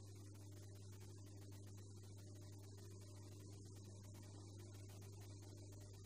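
Near silence: a steady low electrical hum from the recording, with faint hiss.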